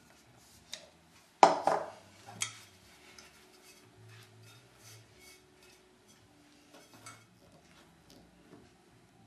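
Kitchen dishes and utensils clattering: a loud clack about a second and a half in, a second knock a second later, then a few faint taps.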